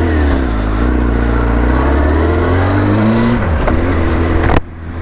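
Motorcycle engine accelerating, its pitch climbing with the revs and dropping back at gear changes about a second in and again about three and a half seconds in. A sharp click sounds near the end.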